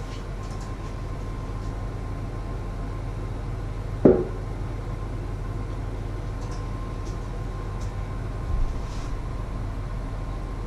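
Steady low hum with a faint steady whine. One sharp knock about four seconds in, and a softer bump near the end.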